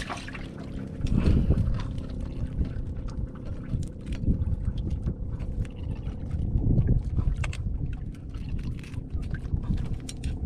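Wind buffeting the microphone over water sounds around a small open boat, with the rumble swelling and fading. Through it come many small, sharp clicks and rustles as a blue crab is picked out of the nylon mesh of a crab net.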